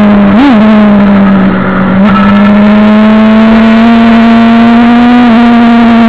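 Suzuki GSX-R750 SRAD's inline four-cylinder engine running at high revs, heard on board the bike. The pitch rises and falls briefly about half a second in, the sound dips for a moment around two seconds in, and then the pitch climbs slowly.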